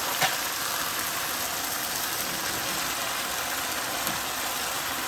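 Chicken pieces sizzling steadily in hot canola oil in a wok pan, with a light click of metal tongs just after the start.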